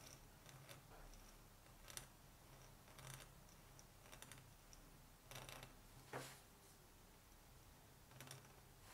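Faint scratching of a Hunt 101 pointed steel dip-pen nib drawing short strokes on paper, about eight separate strokes at uneven intervals.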